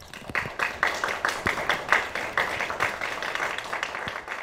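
A crowd of people clapping: quick, uneven applause that begins at once and thins out near the end.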